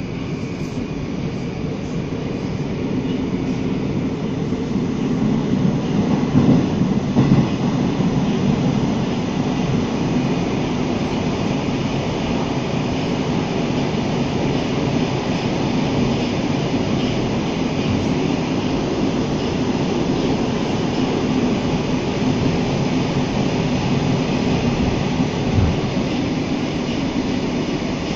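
Running noise of an 81-760/761 "Oka" metro train heard from inside the passenger car as it travels through the tunnel: a steady, dense rumble of wheels on rail and running gear. It grows louder over the first few seconds, then holds even.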